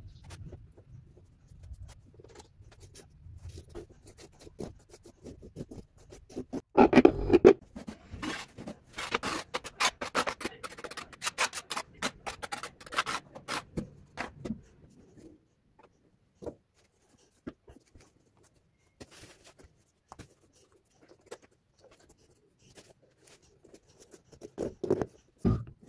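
Steel trowel scraping and spreading tile adhesive across the back of a cut ceramic tile piece in many quick strokes. Near the end, a couple of low thuds as a tile is pressed down into its adhesive bed.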